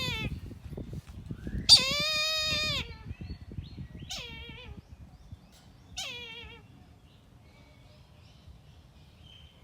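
Kite calling: a loud, drawn-out cry about a second long with a wavering pitch that drops at the end, then two shorter, fainter cries about two seconds apart, over low rumbling noise in the first few seconds.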